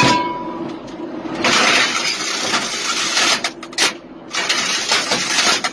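Metal clang inside a self-propelled howitzer's turret, with a short ringing tone, as the crew handles ammunition between shots. It is followed by two stretches of loud rushing noise, the first lasting about two seconds and the second starting about four seconds in.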